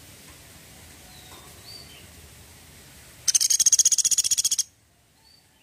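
Caged pygmy woodpecker giving its "tembakan" call: a loud, fast rattling trill of high, even notes at about fifteen a second, lasting just over a second and cutting off abruptly. A few faint high chirps come before it.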